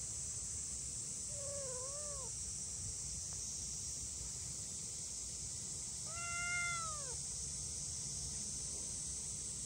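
Two-month-old kitten meowing twice: a short wavering meow about a second and a half in, and a louder, longer meow that rises and falls about six seconds in. These are the anxious calls of a kitten left behind by its mother.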